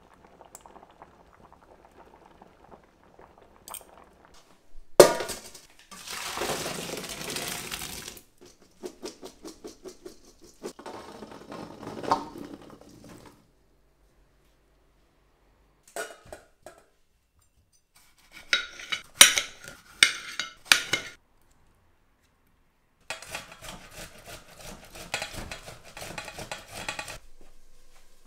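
Metal kitchenware in several separate bursts: a sharp clank about five seconds in, followed by a few seconds of rushing noise, then rattling, bright clinks of metal utensils and beans against steel pots and pans about two-thirds of the way through, and more rattling near the end.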